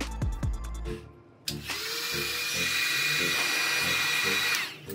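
A small handheld power tool, drill-like, starts about a second and a half in, runs at a steady high whine for about three seconds, then stops.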